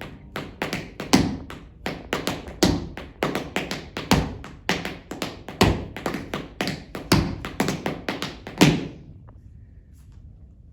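Tap shoes on a hard floor dancing a time step, unaccompanied: a quick, syncopated run of sharp taps with heavier accented strikes. The tapping stops about nine seconds in.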